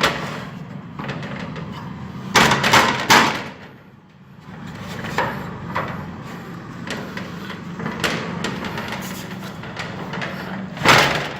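A shutter being pulled closed and locked, with a few loud clattering knocks about two and a half seconds in, lighter knocks after that, and another loud knock near the end.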